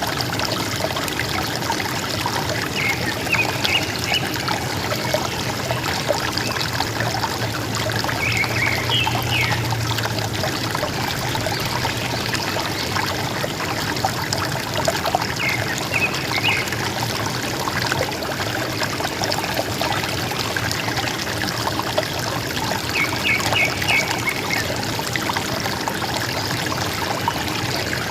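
River water running and gurgling steadily, with a forest bird giving a short run of quick high chirps four times.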